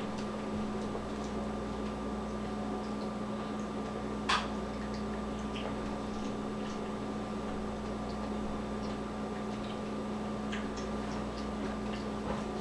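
A steady low electrical hum with scattered light clicks and taps, and one sharper click about four seconds in.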